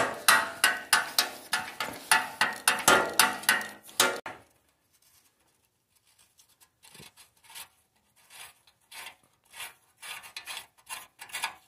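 Ratchet clicking rapidly for about four seconds as the freshly cracked-loose steering stem retaining nut on a Yamaha Banshee frame is backed out with a homemade 30 mm socket tool. After a short pause, faint metal scraping and light clicks follow as the nut is turned out by hand.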